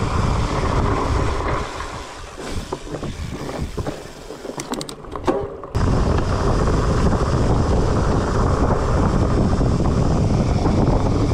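Wind rushing over the microphone and fat-bike tyres rumbling on a dirt trail during a fast ride. The noise drops off for a few seconds, with some sharp clicks and rattles, then comes back loud suddenly about six seconds in.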